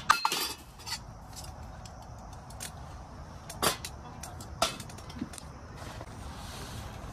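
Small metal camping cookware clinking as it is handled: a quick cluster of clinks at the start, one with a short metallic ring, then two single knocks a few seconds later.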